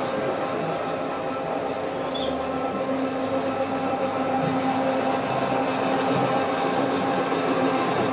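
Single-disc rotary floor scrubber running on carpet: a steady motor drone with an even hum.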